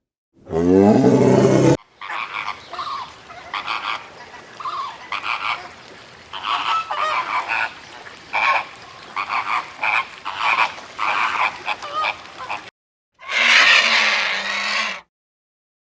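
A quick series of many short animal calls lasting about ten seconds, after a loud call with a sliding pitch about a second in, and followed by a loud, rough call near the end.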